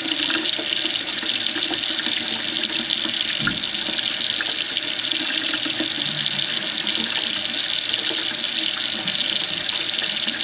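Tap water running steadily into a kitchen sink and down its drain. The drain is flowing freely again now that the clog is cleared, and it sounds fine.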